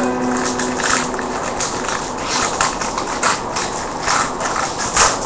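Trading cards and foil pack wrappers being handled, a rustling with short crackles scattered throughout.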